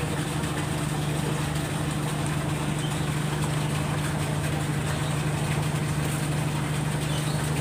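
A large ship's engine running steadily: an even, low drone that holds one pitch throughout.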